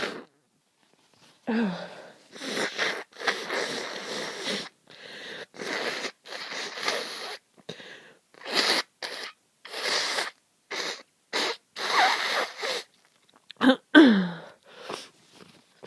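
A person with a heavy, congested head cold sniffling and blowing their stuffy nose in a run of noisy bursts, some lasting a few seconds. Near the end comes a loud sneeze with a falling voiced tail.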